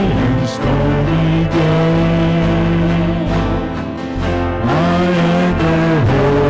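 Live worship band and singers performing a slow hymn, the voices holding long notes over the instruments.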